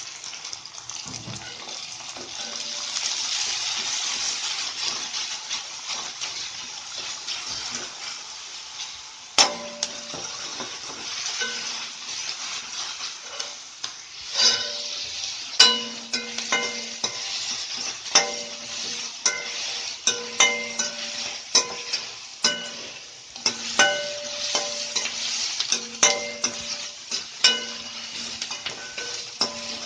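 Small onions sizzling in hot oil in a kadai as they are stirred. From about ten seconds in, a ladle knocks against the pan roughly once a second, and each knock rings.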